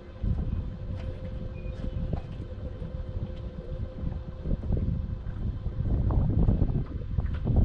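Wind buffeting the microphone over the steady hum of a running boat motor; the hum fades out about halfway and the wind rumble grows louder toward the end.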